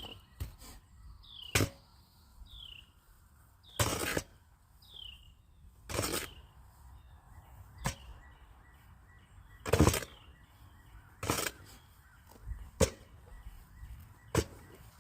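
Repeated strokes of a hand tool scraping and chopping through a heavy concrete mix, roughly every second or two: some short sharp knocks, some longer scrapes. A small bird gives a few short chirps that fall in pitch, mostly in the first half.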